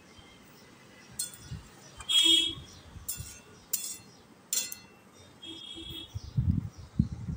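Steel spatula knocking and scraping against a steel kadai while stirring a thin curry: a handful of sharp metallic clinks with brief ringing, the loudest about two seconds in. A few low thumps near the end.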